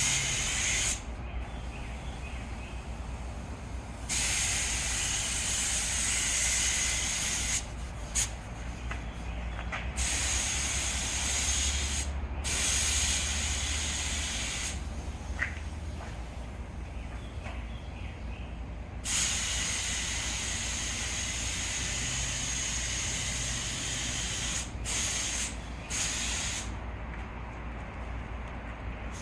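Aerosol spray-paint can hissing in long bursts of several seconds with brief pauses between them, then a few short puffs near the end, as car parts are spray painted.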